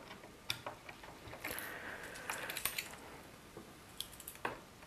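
Irregular small metallic clicks and scrapes of a multi-tool's Torx driver bit turning out the screws of an iMac G4's metal base plate, with a short scraping stretch about a second and a half in.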